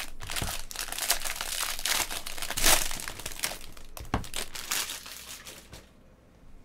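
Foil trading-card pack wrapper crinkling and tearing as it is pulled open and crumpled by hand, with a couple of soft knocks among the crackling; it stops about six seconds in.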